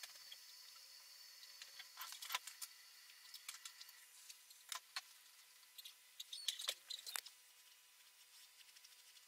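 Faint clicks and light taps from painting tools being handled, in small clusters about two seconds in, around five seconds and about seven seconds in, over quiet room tone.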